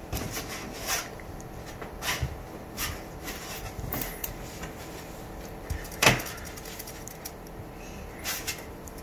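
Scattered light knocks and rustles as a puppy paws at and pushes its fabric dog house around inside a plastic playpen, with the loudest knock about six seconds in.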